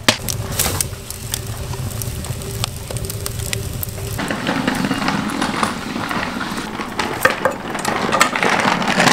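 Water boiling in a cauldron as a bunch of mint is swished through it. About four seconds in this gives way to a wood fire crackling and popping in a stove's firebox.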